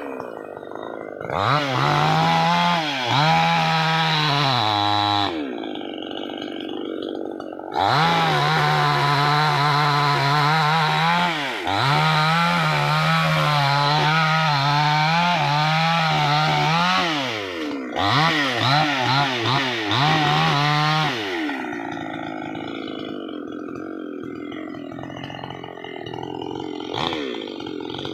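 Two-stroke chainsaw cutting a tree, revved up and held at full throttle in several long bursts with the revs dropping between them, then falling back to a quieter idle for the last several seconds.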